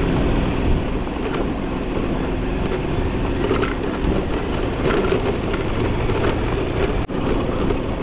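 Motorcycle riding over a rough unpaved gravel road: engine running under heavy wind rush on the microphone, with occasional knocks from the bumpy surface. The sound cuts out briefly about seven seconds in.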